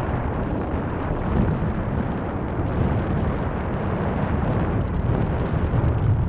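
Steady wind rumble on the microphone of a camera mounted on top of a moving car, blended with the car's road and tyre noise on snow.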